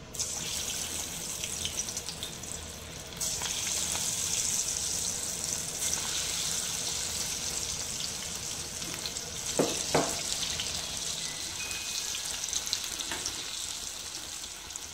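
Pakoras of moong, spinach and fenugreek batter deep-frying in oil heated on a high flame in a steel kadai: a steady sizzle that grows louder about three seconds in. Two short knocks come around the middle.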